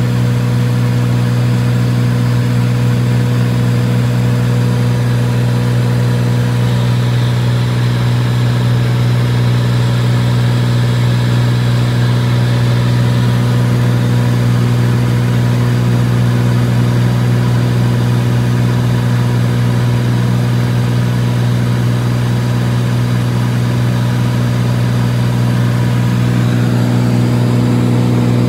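Engine running at a constant speed: a steady, unchanging drone.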